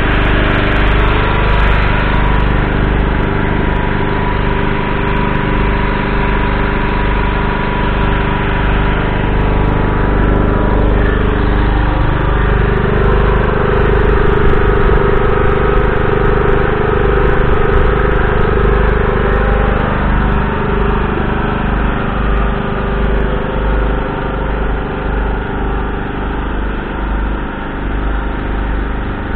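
Large diesel engine idling steadily close by. For several seconds in the middle a second, higher engine note swells and fades over it.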